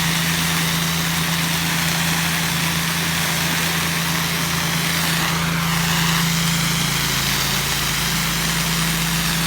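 A small engine running steadily with a constant low hum, powering a soft wash spraying rig, with the steady hiss of the spray over it.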